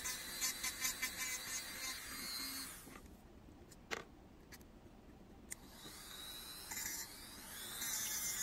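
Goxawee handheld rotary tool with a sanding band grinding the edge of a silver ring bezel. It stops about three seconds in, and in the quiet gap there are a couple of sharp clicks. The motor runs again near the end with a steady high whine, now fitted with a felt polishing bit.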